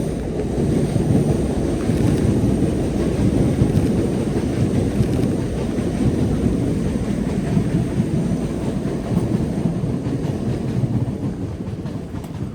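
A train passing close by on the tracks: a loud, steady rumble that sets in suddenly and holds, with a faint high whine above it.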